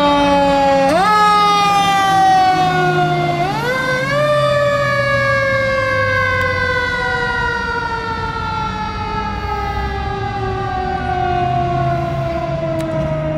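Fire engine siren wailing. Its pitch jumps up twice in the first few seconds, then winds slowly down for the rest.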